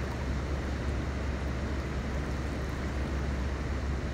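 Steady outdoor background roar: a deep, even rumble under a constant hiss, with no separate events.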